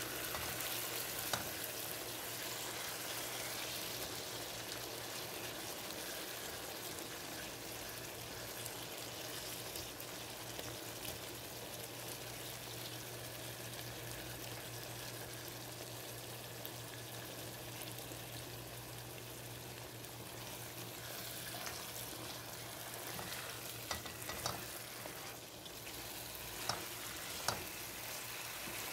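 Mutton curry sizzling steadily in the pan as it is stirred, with a few sharp knocks of the spatula against the pan near the end, over a steady low hum.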